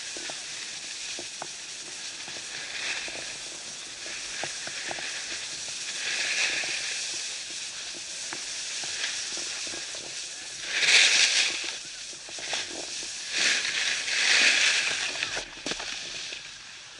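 Snowboard sliding down a groomed piste: a steady scraping hiss of the board on firm snow, swelling into louder scrapes on the turns, loudest about eleven seconds in and again around fourteen.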